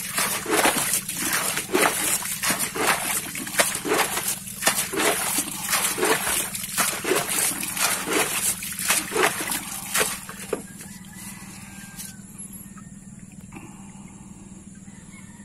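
Rainwater being bailed out of a small boat's flooded hull by hand with a scoop: repeated splashes and sloshes, about two a second, that stop about ten seconds in.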